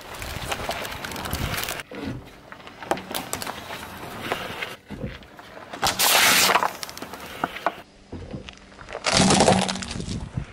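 A car tyre rolling over and crushing a series of objects on asphalt: crackling crunches at first as a crusty bread loaf is flattened, a loud crackling burst about six seconds in as a plastic soda bottle is crushed, and another loud crack near the end as a plastic toy breaks apart.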